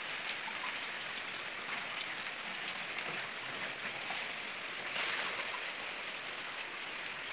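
Steady hiss of rain falling, with a few faint scattered ticks.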